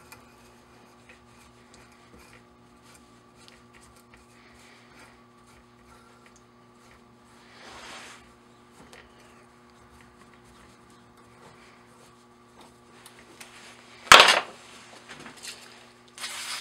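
Small metal clicks and rubbing as a tap and its handle are worked at a steel bench vise, over a steady low hum. A single loud metal clank comes about fourteen seconds in, and a hiss of aerosol carburetor cleaner spray begins right at the end.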